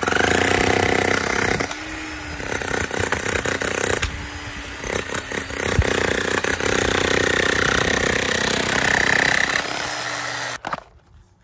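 Hercules electric demolition hammer chiseling out a cored plug of concrete, hammering in long runs that ease briefly about two and four seconds in and stop sharply near the end.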